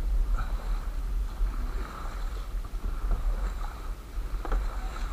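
Small boat on the river, water lapping and splashing around the hull over a steady low rumble, with a faint knock about four and a half seconds in.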